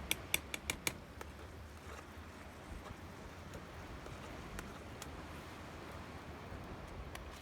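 Five quick metallic clinks in the first second, like a metal spoon knocking against a pan, then a few faint clicks over a steady low rumble.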